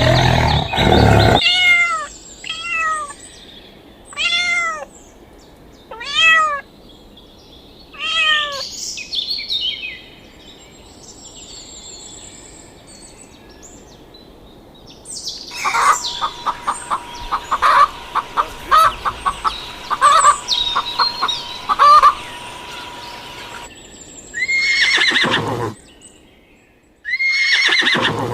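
A string of different animal calls. It opens with the end of a big cat's roar, then comes a run of short arched calls, then a stretch of rapid clicking over a steady tone, and two loud, harsh calls near the end.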